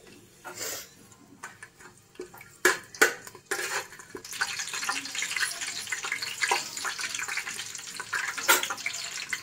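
Whole spices and bay leaves frying in hot oil and ghee in a metal pot. A spoon knocks on the pot a few times, then from about three and a half seconds in a steady sizzling crackle sets in as the oil gets hot around the spices.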